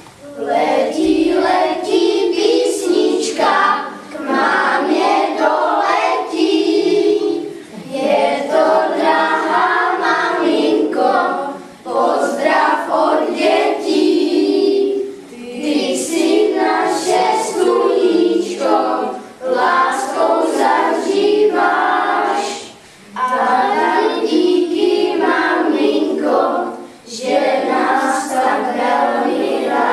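A group of children and a young woman singing a song together, in phrases of a few seconds with short breaks between them.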